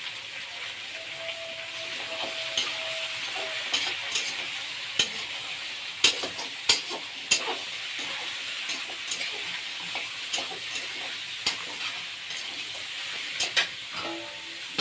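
Meat sizzling as it fries in a pan, with a steady hiss and irregular sharp clinks and scrapes of a spoon stirring against the pan.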